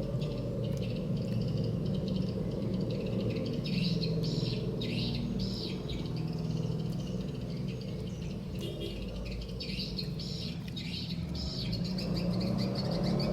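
Birds chirping over and over in short calls, over a steady low background hum.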